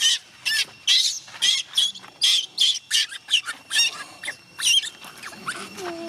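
Baby macaque crying in distress: a rapid run of short, shrill squealing cries, two or three a second, thinning out after about four seconds.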